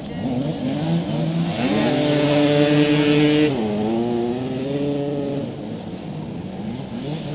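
Motoball motorcycle engine revving up and held at high revs for about a second and a half. It then drops back to lower revs and fades.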